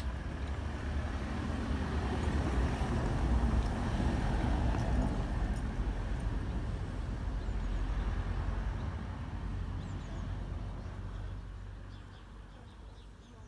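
A motor vehicle passing by: a low, noisy rumble that swells over the first few seconds and fades away near the end.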